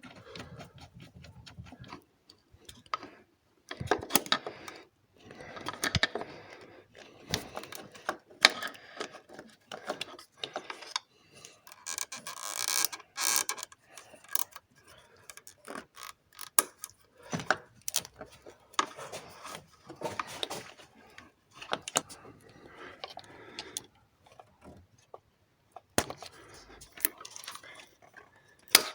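Hand tools working on the fittings of a common-rail diesel high-pressure fuel pump: irregular clicking and light metal clinks, with a brief hiss-like noise about twelve seconds in.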